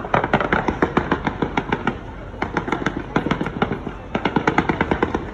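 Fireworks display: rapid volleys of sharp crackling bangs, several a second, in three runs broken by brief lulls about two and four seconds in.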